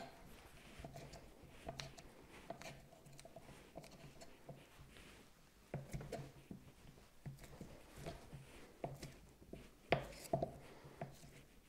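Kitchen knife cutting a block of cold butter into small cubes on a wooden cutting board: faint, irregular taps of the blade reaching the wood, the loudest about six and ten seconds in.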